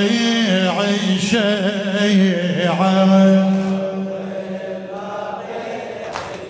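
A man chanting an Iraqi Shia Muharram lament (latmiya) through a microphone, unaccompanied, holding long wavering, ornamented notes. The voice fades over the last few seconds.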